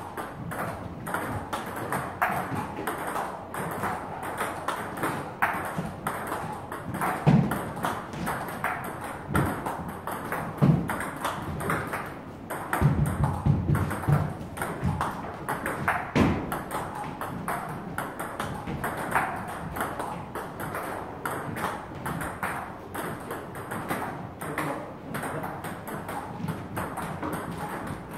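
Table tennis rally: the ball clicks off the bats and the table in a steady back-and-forth, with several heavier thumps, including a quick run of them about halfway through.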